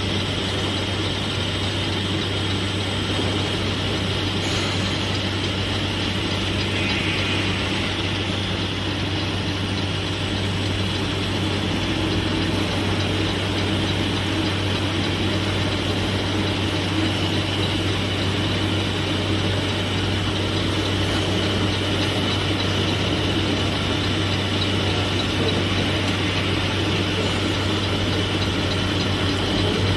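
Single-head edge milling machine running steadily, its milling head cutting a bevel along the edge of a steel plate: a constant machine noise over a steady low hum.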